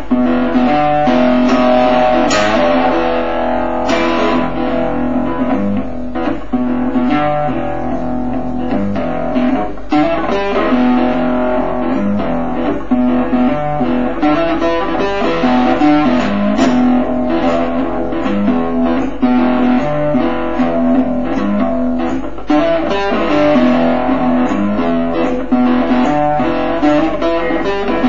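Guitar music: plucked guitar notes played continuously at a steady level.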